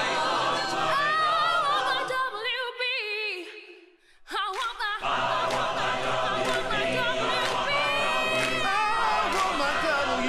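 A choir singing, with a high voice in wide vibrato standing out above it. About four seconds in, the singing cuts out almost to silence and one high note sounds. The full choir comes back in about a second later.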